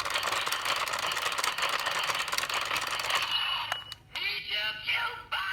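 The DX Zenkai Buckle toy belt's electronic sounds through its small speaker: about three seconds of dense, crackling noise. After a brief pause about four seconds in, a synthetic voice and music start.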